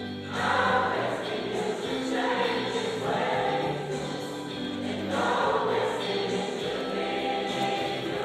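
High school choir singing, in sustained phrases that swell and fade every two to three seconds.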